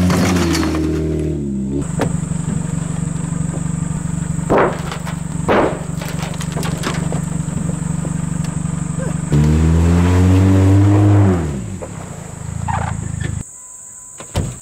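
Car engine revving and easing off near the start, running steadily with a couple of sharp knocks, then revving up again about nine seconds in and dropping away. The engine sound cuts off about a second before the end.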